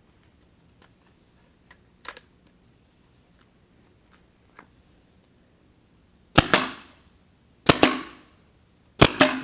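Tippmann TPX paintball pistol firing on CO2: four sharp shots in the last few seconds, about a second and a half apart, the last two in quick succession, as the CO2 runs low. Before them, a few faint clicks of handling.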